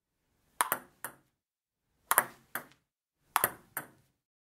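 Table tennis ball striking paddles and the table: three short clusters of two or three sharp, hollow ticks about a second and a half apart.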